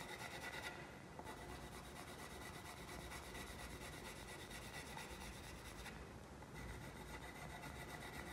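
Graphite pencil shading on drawing paper laid on a wooden drawing board: a faint, steady scratching of quick, even back-and-forth strokes building up a tone.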